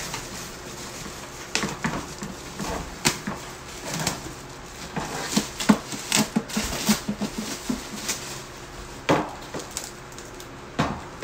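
Clear plastic packaging bag crinkling and crackling as it is pulled off the hard plastic body of a children's ride-on motorbike, with irregular clicks and knocks from the plastic parts; a thicker run of crackles about five to seven seconds in, and sharper knocks about nine and eleven seconds in.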